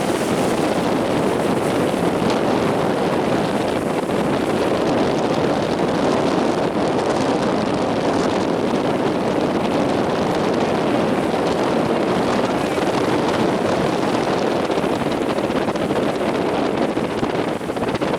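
Strong wind buffeting the microphone over a steady roar of heavy surf.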